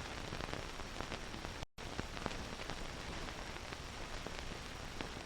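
Old film soundtrack noise: steady hiss and low hum with scattered crackling clicks. It cuts out completely for a split second about a second and a half in.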